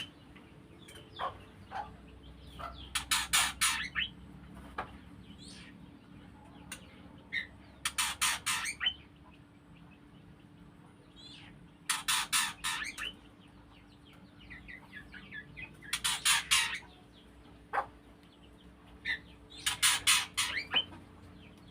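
White-rumped shamas calling: harsh rattling bursts of several rapid notes, each about a second long, repeat roughly every four seconds, with softer short chirps in between.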